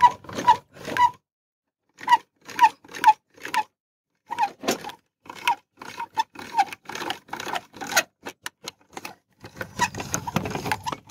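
Swivel trailer jack on a coop's adjustable caster wheel being hand-cranked: a short squeaky scrape with each turn of the handle, about two a second, with a couple of brief pauses.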